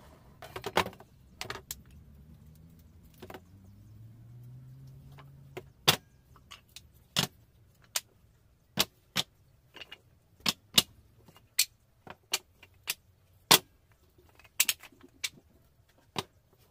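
Cut wooden blocks being set down and stacked on a plywood table, a series of sharp wooden knocks and clacks at irregular intervals, coming faster in the second half.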